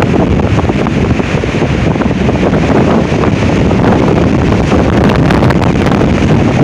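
Strong wind blasting the microphone: a loud, continuous rumbling buffet, with a crackly stretch around five seconds in.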